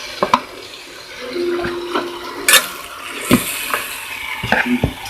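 Raw chicken pieces being added to a pan of fried masala and stirred in, with wet slapping and several sharp metal clinks of utensils against the pan.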